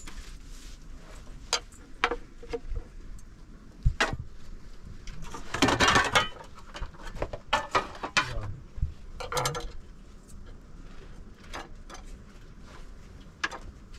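Bottles and small jars knocking and clinking as they are handled on a round metal tray: scattered sharp knocks, with a longer, louder burst of handling noise about halfway through.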